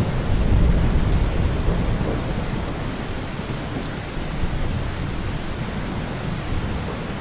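Steady rain with a low thunder rumble, loudest in the first couple of seconds and easing slightly after.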